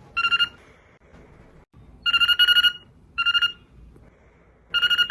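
Trilling telephone-style ring in four short bursts with pauses between them. Each burst is a fast-pulsing two-note warble, the last cut off at the end.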